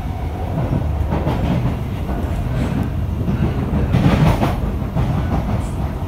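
Running noise heard from inside an SMRT C151B electric metro train on the move: a steady rumble of wheels on the rails with some clatter, swelling louder about four seconds in.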